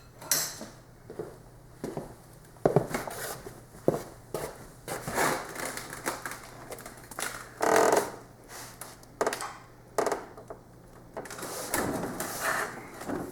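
Irregular knocks, clunks and rustling from handling a heavy flat-screen TV hung on a modified engine hoist (cherry picker) as it is tilted over and lowered, over a faint steady hum.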